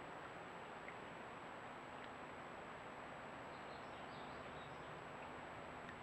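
Faint steady hiss of a trail camera's outdoor recording, with a thin high electronic whine under it and a few faint high chirps about halfway through.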